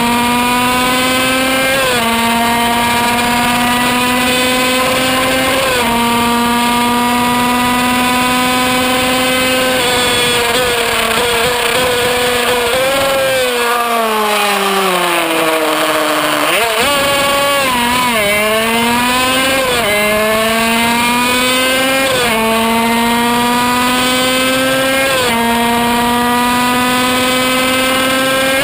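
Kreidler Van Veen 50cc single-cylinder two-stroke racing engine at full throttle around 14,000–15,000 rpm, a high buzzing note that climbs slowly in each gear and drops sharply at each upshift every few seconds. About halfway through the revs fall away as it slows for a corner, then it accelerates back up through the gears.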